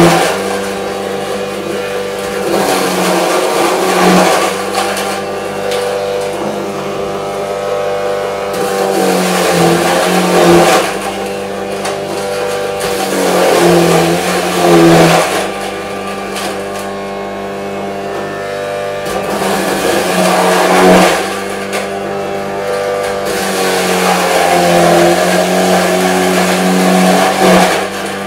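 Electric vegetable grater's motor running steadily while peeled potatoes are pushed down its feed tube, grinding louder and rougher several times as each fresh potato is pressed onto the cutter.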